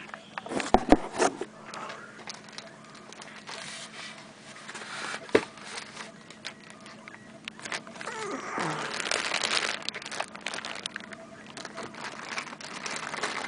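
Packaging crinkling and rustling as a toy train tender is unwrapped by hand, with scattered clicks and knocks of handling, the sharpest about five and a half seconds in.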